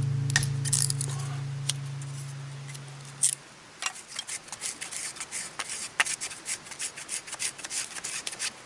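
Acoustic guitar background music fading out, then a quick run of crisp, sharp clicks or snips, several a second, stopping near the end.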